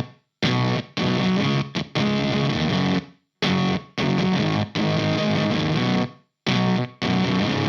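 Electric guitar played through a Valco Bloodbuzz fuzz pedal: thick, distorted chords in short phrases, each cut off abruptly into silence instead of ringing out, the sign of the fuzz's heavy gating.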